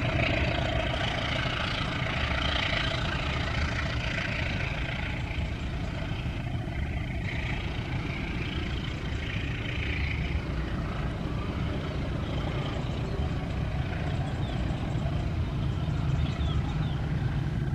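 Diesel-hauled passenger train running away down the track: a steady rumble of wheels on rail and engine noise, the hiss of the wheels fading over the first few seconds. The low rumble swells again near the end as the train reaches a steel truss bridge.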